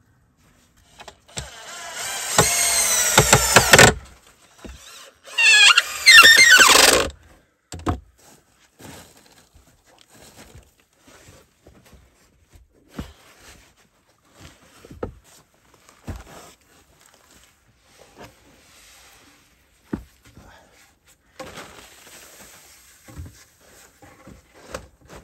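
Cordless drill driving screws into a wooden board: two runs, the first about three seconds long and the second about two, the motor's pitch wavering as the screws bite. Faint scattered clicks and rustles follow.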